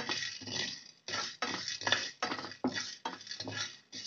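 Wooden spatula stirring and scraping whole spices and chana dal as they roast in a kadai: a steady run of short, rasping strokes, about two to three a second.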